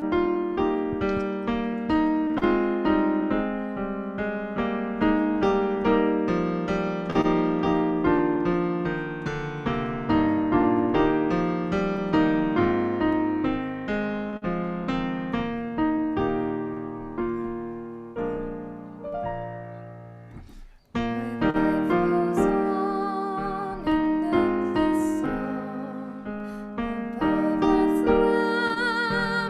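Solo piano playing a slow, flowing piece of church music. It breaks off abruptly for a moment about two-thirds of the way through, then resumes with a wavering vibrato melody over the piano.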